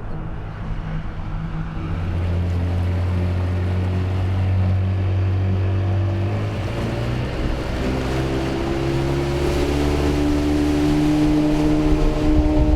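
Motorboat engine running under way over wind and water noise, its pitch climbing slowly over the second half as the boat speeds up.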